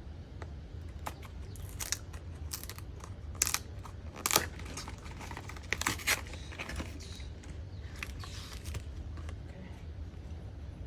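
Plastic wrap and a cardboard box being torn open and handled: irregular crinkling and tearing with sharp crackles and snaps, the loudest about four seconds in.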